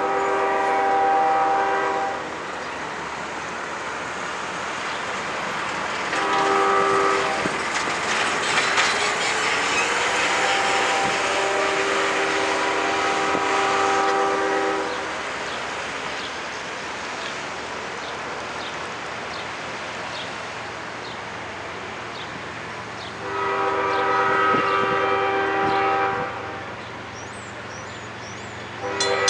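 Diesel freight locomotive sounding its multi-tone air horn in repeated blasts as it approaches a grade crossing, one short and the rest long, with the steady rumble of the train between the blasts.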